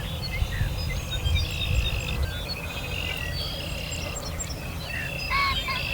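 Spring chorus of frogs with birds calling: many short chirps and held trills overlapping, over a low rumble.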